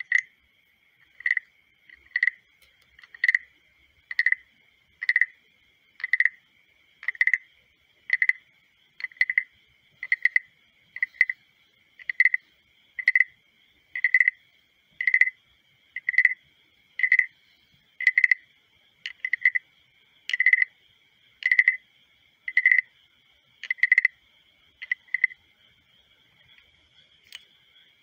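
Carved wooden frog guiro scraped with its stick, giving a short rasping croak about once a second, some two dozen times, stopping a few seconds before the end.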